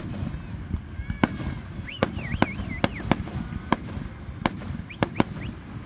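Aerial fireworks display: a dozen or so sharp bangs and cracks at irregular intervals over a steady low rumble, with a few brief high squeals about two seconds in.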